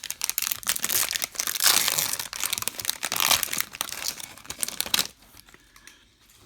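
Foil wrapper of a baseball card rack pack crinkling and tearing open, a dense crackle for about five seconds that stops abruptly.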